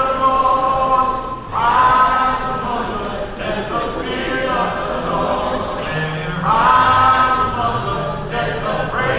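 Congregation singing a hymn a cappella, many voices together in long held phrases that start afresh every two or three seconds.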